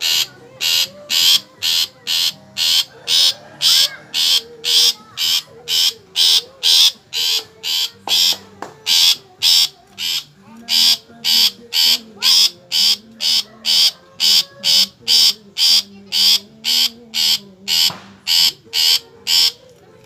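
Long-tailed shrike (cendet) giving a long run of harsh calls, about two a second, that stop shortly before the end.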